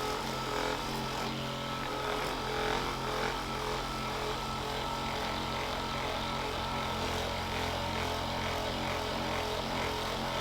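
Handheld electric percussion massager running steadily against the glute muscle, a constant motor buzz.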